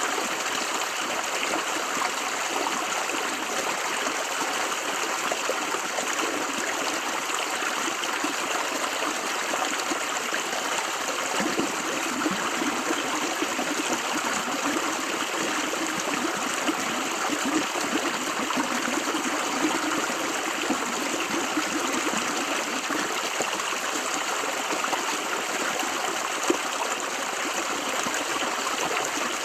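River water flowing steadily over rocks: an even rushing babble with small splashes, and a deeper gurgle coming up through the middle of the stretch.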